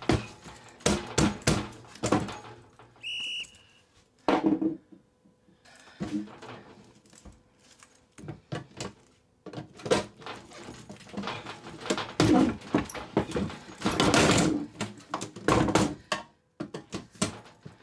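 Screwdriver and pry tools working at the lid seam of a small steel Bill Conch gun safe: a busy run of clicks, knocks and metal scrapes as the lid is forced. A short beep sounds about three seconds in.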